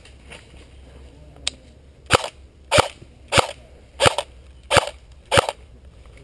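Airsoft gun fired in semi-automatic: six sharp single shots in quick, even succession, roughly one and a half a second, after a light click.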